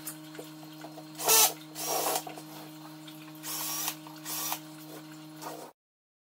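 Handheld power drill running with a steady motor hum, the bit boring into an artificial aquarium rock decoration in four louder bursts. The sound cuts off suddenly near the end.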